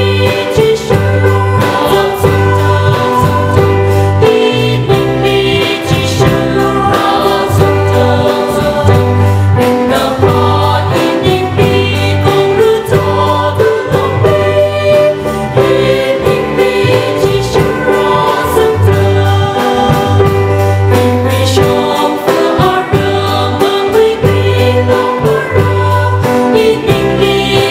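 Mixed choir of women's and men's voices singing a hymn, with a band accompanying on keyboard, guitar and drum kit. The bass and drums keep a steady beat under the held sung notes.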